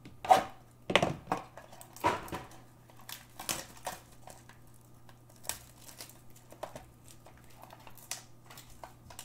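Cardboard trading-card boxes of Panini Absolute basketball being handled and opened by hand: packaging crinkling and rustling, with a few sharper clicks and taps, strongest in the first two seconds.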